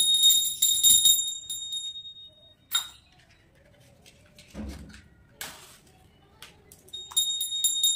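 Small handheld puja bell ringing, stopping about a second in and dying away. A few faint knocks and rustles follow, then the bell rings again near the end.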